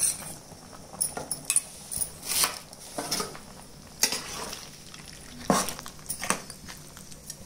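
A steel spoon scraping and clinking against a steel pan as chicken curry is stirred, in short irregular strokes, with a faint sizzle in between.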